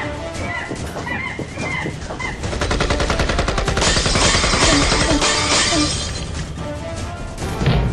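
Sustained automatic rifle fire, a rapid string of shots lasting several seconds, over music.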